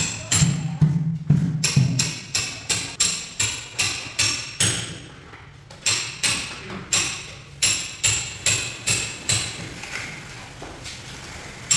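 Mallet tapping a large floor tile to bed it into the mortar: quick, even strikes about two or three a second, with a couple of short pauses.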